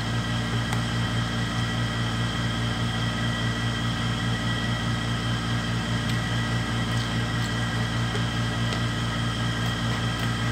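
Steady mechanical hum with a low drone and several faint, steady high-pitched tones, like a running fan or air-conditioning unit, with a few faint clicks.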